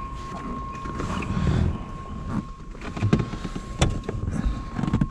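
Handling noises of a person climbing into a car's driver seat: shuffling and bumps with a few sharp clicks, the clearest about three and four seconds in, over a steady faint hum. The engine is not running.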